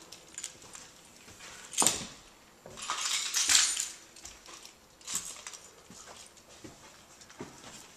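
Handling noise from a handheld camera carried up a carpeted staircase: scattered knocks and clicks, with a longer rattling rustle about three seconds in.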